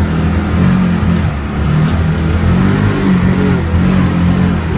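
A motor vehicle's engine running, its pitch rising and falling as it revs.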